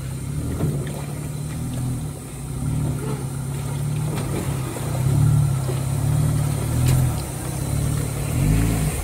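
Toyota 4Runner engine pulling at low revs, swelling and easing as the truck crawls over rocks, with a short rising rev near the end.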